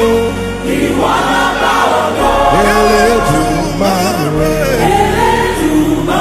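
Choir and congregation singing a gospel praise song with band accompaniment and a steady bass.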